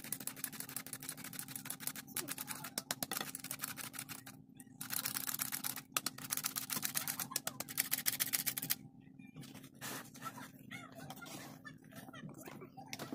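Wire whisk beating a runny kefir batter in a plastic bowl: fast, continuous clicking of the wires against the bowl, louder for a few seconds past the middle. It stops about nine seconds in, and quieter scraping follows as flour is stirred in with a spatula.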